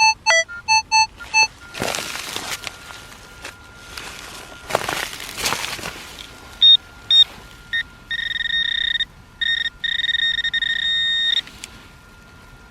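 Metal detector sounding its target tones. A quick run of short beeps comes at the start, some at changing pitches. From about six and a half seconds in come short high beeps, then long held high tones broken by short gaps, stopping near the end. A faint steady tone runs underneath, with a few brief swishes between the beeps.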